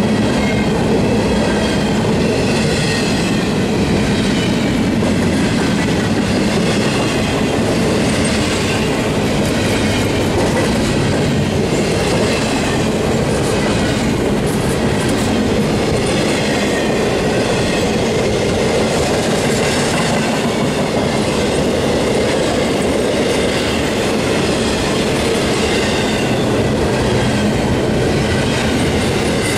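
Double-stack intermodal freight train rolling past close by: a steady, unbroken rumble and clatter of steel wheels on rail as container well cars go by one after another, with a wavering high ring over it.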